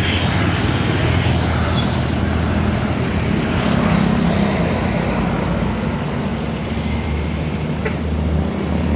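Road traffic noise with a vehicle engine running steadily underneath.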